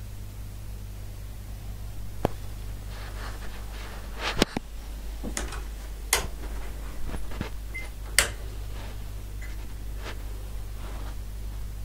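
A string of sharp knocks and clicks, coming roughly once a second, with the loudest just past four seconds and about eight seconds in. A steady low hum and hiss runs underneath.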